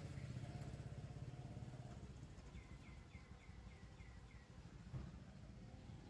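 Faint low rumble of a distant motor vehicle. In the middle, a bird gives a quick run of about seven short falling chirps, roughly four a second.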